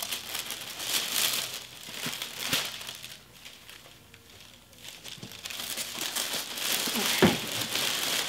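Tissue packing paper crinkling and rustling as it is handled, in irregular bouts, with a quieter stretch about halfway through.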